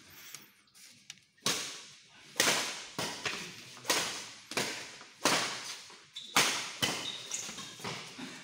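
Badminton rackets hitting a shuttlecock in a rally: a string of sharp smacks, one every half second to second, starting about a second and a half in, each followed by a short echo from the hall.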